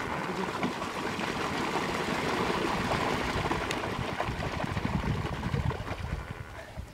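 Water splashing and rushing with a low rumble as a flock of lesser flamingos runs pattering across the lake surface to take off. The sound fades out near the end.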